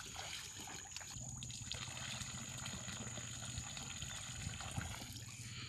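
Faint trickle of water poured in a thin stream from a small steel pot into shallow river water.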